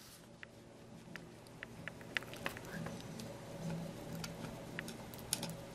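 Small hand tool working a hole through a thin plastic model-kit part: faint, scattered clicks and scrapes of the tip against the plastic.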